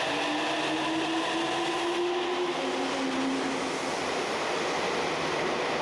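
Nagoya Municipal Subway 7000 series train accelerating out of the station. Its inverter-driven traction motors whine in tones that rise slowly in pitch and fade after about four seconds, over the steady rumble of the cars rolling past.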